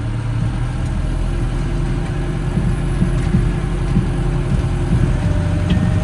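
Massey Ferguson 6150 tractor's diesel engine running steadily, a little louder after about two seconds.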